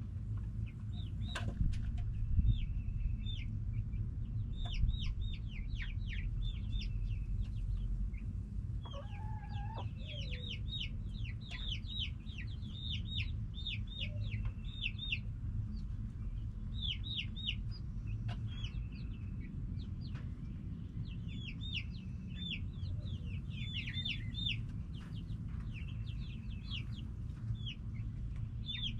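Backyard chickens calling: runs of quick, high chirping notes go on throughout, and a lower hen call comes about nine seconds in, over a steady low rumble.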